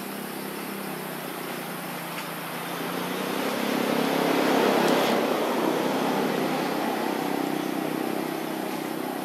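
A motor vehicle's engine passing by: a steady hum that swells to its loudest about five seconds in and then slowly fades.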